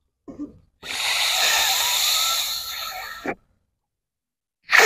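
Rescue breaths blown into a CPR training manikin's mouth through a face shield, after a round of chest compressions: one long rushing breath of about two and a half seconds, then a second one starting near the end.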